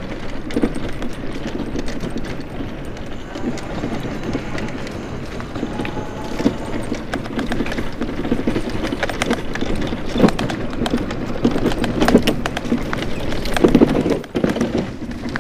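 Challenger X scooter rattling and knocking as it rides over the joints and bumps of a concrete trail: a dense, uneven clatter, heaviest near the end, from a rough ride.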